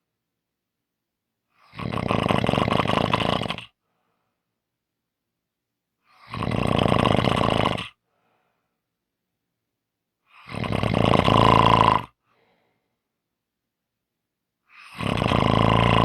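A person snoring: four loud snores, each lasting about two seconds, spaced about four seconds apart with silence between them.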